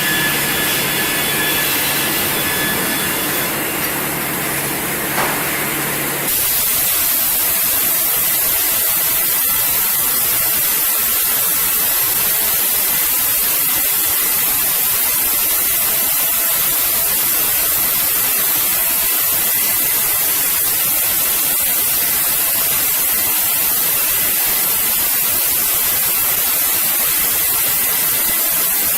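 A steady, loud hiss like white noise fills most of the stretch. For about the first six seconds a machine sound with several steady tones runs under it, then cuts off suddenly.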